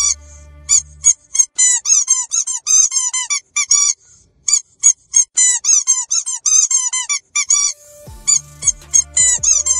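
Squeaky dog toy squeezed over and over in quick runs of squeaks, a few per second, each squeak rising then falling in pitch. There is a short pause about three and a half seconds in, and another near eight seconds. A low steady hum sounds under the squeaks at the start and again near the end.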